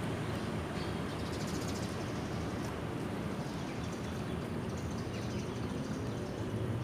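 Steady low rumble of vehicles crossing the bridge overhead, heard from beneath it, with faint bird chirps about a second in.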